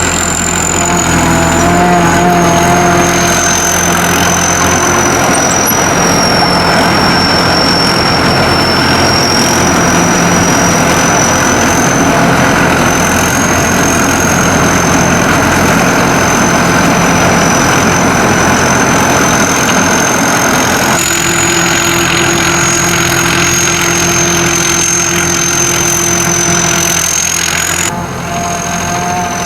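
SAKPATTANA SS-200 mini combine harvester running steadily, its engine and machinery with a high whine that drifts slightly in pitch. The sound changes abruptly about two-thirds of the way through and again near the end.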